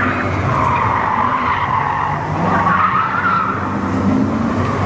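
Car tyres squealing as a sports car corners hard around a cone course, the squeal wavering in pitch, with the engine note rising beneath it about halfway through.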